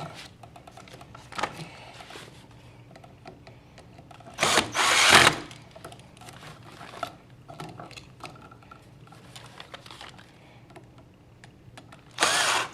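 Small clicks and scrapes of hand tools and copper wire as neutral wires are fastened under an outlet's silver terminal screws, with two louder bursts of about a second each, one about four seconds in and one near the end.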